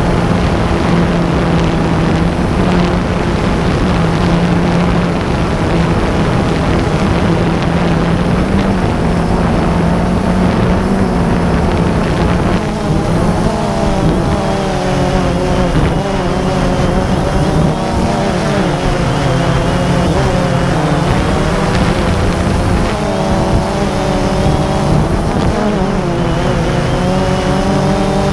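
A camera drone's motors and propellers buzzing steadily as it flies. About halfway through, its higher tones begin wavering up and down as the motors change speed.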